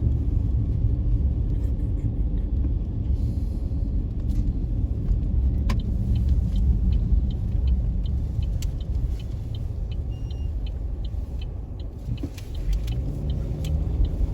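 Car driving, heard from inside the cabin: a steady low rumble of road and engine, with a run of evenly spaced light ticks, about two a second, through the middle. Near the end a low engine note rises.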